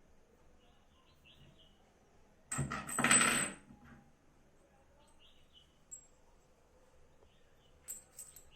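Small metal parts clinking and clattering for about a second, starting a little before the middle. Faint short bird chirps can be heard now and then.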